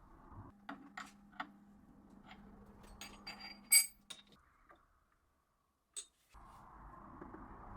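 Small metal parts and tools being handled: scattered light clicks and clinks, and one sharp, ringing metallic clink a little before four seconds in. A faint steady hum underlies the first half, and a steady low noise comes in near the end.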